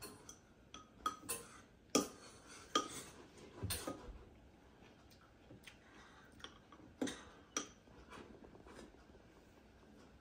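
Metal spoons clinking and scraping against ceramic soup bowls as two people eat soup: irregular light clinks, busiest in the first four seconds, with a couple more about seven seconds in.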